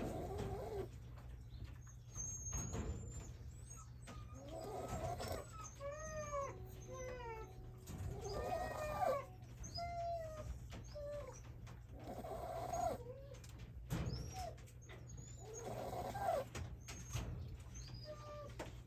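Young Shiba Inu snoring in its sleep, one pitched, wavering snore about every four seconds.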